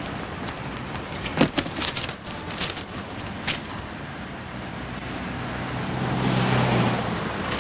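City street traffic noise, with a clatter and papery rustles about a second and a half in as a newspaper is pulled from a sidewalk newspaper stand and opened. Near the end a passing vehicle swells louder with a low hum, then fades.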